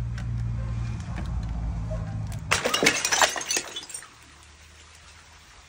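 A large liquid-filled glass bottle rolling over concrete with a low rumble, then smashing on concrete steps about two and a half seconds in. The crash lasts about a second of shattering and clinking glass, then dies away.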